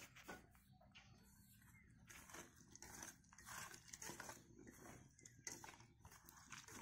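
Faint, irregular splashing and rubbing as dried fish is washed by hand in water in a steel bowl.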